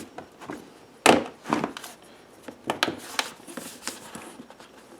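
Handling noise from the rear bagger's plastic hopper and zip-tied screen: a string of knocks and clicks, the loudest about a second in.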